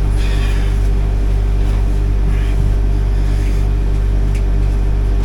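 A steady, loud low mechanical hum, like a motor or generator running, holding the same pitch throughout, with a few faint short rustles over it.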